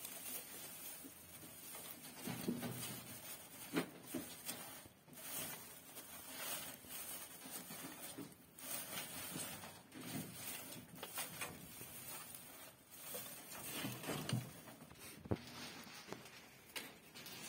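Dry straw rustling and crackling irregularly, with a few sharper clicks, as a pregnant doe rabbit shuffles through her bedding and gathers straw in her mouth to build a nest before giving birth.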